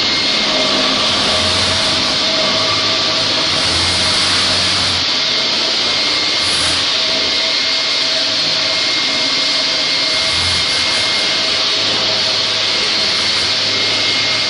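LINAX concrete floor grinder running steadily, its rotating grinding head working across a bare concrete floor while its hose-connected dust extractor draws off the dust. A loud, even rushing noise with a thin steady whistle over it.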